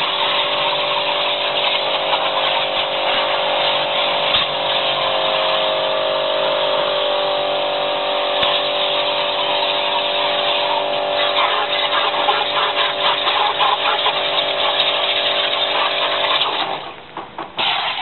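Electric high-pressure washer running and spraying water onto a washing-machine drum: a steady motor hum under a loud hiss of spray. It cuts off suddenly near the end, then starts again briefly.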